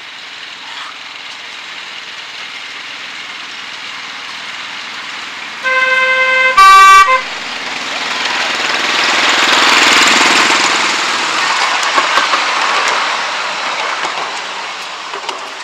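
A petrol-engined miniature Class 35 Hymek-outline locomotive approaching and passing. About six seconds in its horn sounds two notes, a lower one then a louder, higher one. The engine and wheels on the rails then grow louder as it goes by and fade away.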